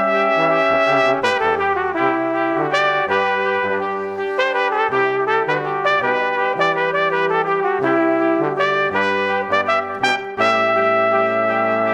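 Instrumental background music of held, pitched notes that change every second or so, with no speech.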